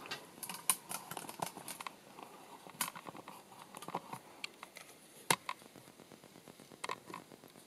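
Irregular small clicks, taps and rubbing from a 35mm SLR camera body being handled and held up against the filming device's lens at the viewfinder eyepiece. The sharpest knocks come a little under a second in, near three seconds, a little past five seconds and near seven seconds.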